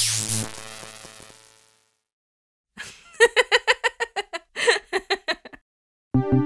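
A high-pitched cartoon giggle: a quick run of short laughing pulses, about six a second, starting about three seconds in after a short pause. Before it a sound fades away, and music starts near the end.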